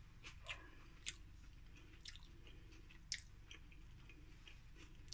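Near silence: faint room tone with a few soft, short clicks roughly once a second.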